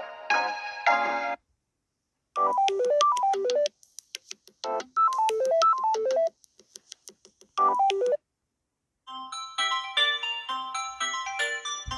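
Samsung Galaxy A30 ringtones played one after another. The end of one tune is followed by a gap, then a short phrase of quickly falling notes repeated about three times with faint ticks between, and a new tune of short notes starting about nine seconds in.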